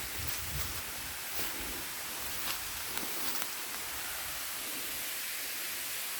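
Steady rush of falling water from a waterfall: an even hiss with no change, with a few faint ticks on top.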